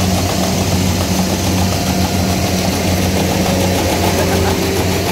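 Kubota combine harvester's diesel engine running loudly and steadily, an even low hum.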